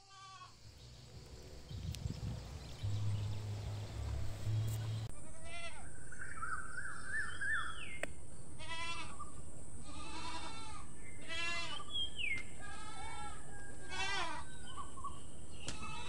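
Goats bleating: a run of about seven wavering bleats in the second half, over a steady background hiss.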